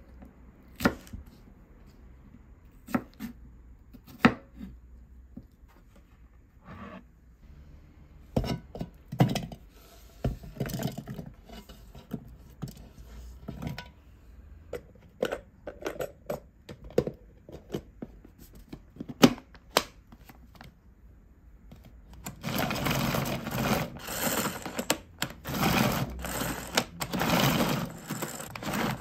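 A large kitchen knife cutting red capsicum and onion on a bamboo cutting board, giving a few sharp knocks, then scattered clatter as pieces and chopper parts are handled. For the last several seconds a pull-string manual food chopper is pulled again and again, its spinning blades making a quick, dense rattle as they mince the vegetables.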